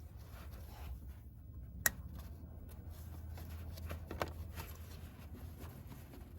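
Faint clicks and rustles of parts being handled while a piece is fitted onto a newly installed starter, with one sharp click about two seconds in, over a steady low hum.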